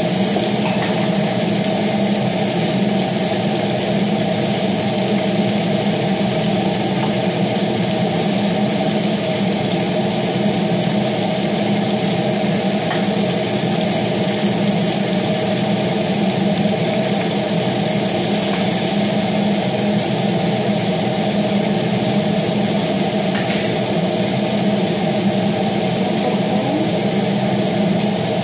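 Kitchen range hood exhaust fan running steadily, a constant hum with a fixed pitch.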